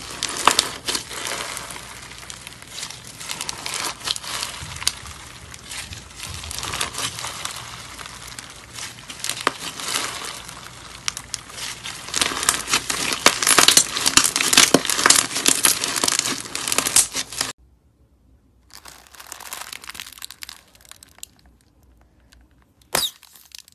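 Green crunchy slime packed with small foam beads being squeezed and kneaded by hand: a dense crackling of popping beads, loudest in the second half, that cuts off suddenly about 17 seconds in. Then a quieter squishing of clear glitter slime pressed between the hands, and one sharp click near the end.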